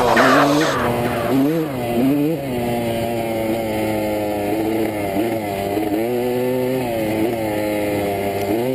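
Honda CR250R dirt bike's two-stroke single-cylinder engine running under a rider on a dirt trail, its pitch dropping and climbing again several times as the throttle is rolled off and on.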